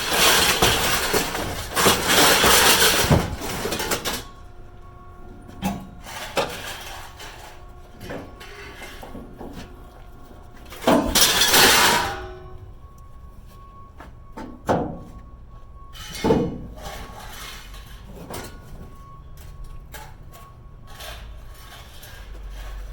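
Scrap metal being tossed into a pickup truck bed: a long crashing clatter at the start and another about eleven seconds in, with scattered single clanks and knocks between.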